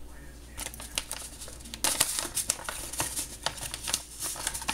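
Plastic bag of chia seeds crinkling and crackling as it is handled. The crackles are sparse at first and come thick and fast from about two seconds in.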